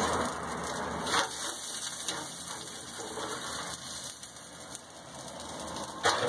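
Crackling hiss from an open smoker while a cooked pork shoulder is worked loose with a fork and lifted toward a foil pan. It dies down over the first few seconds, with a short knock about a second in and a sharper clatter near the end.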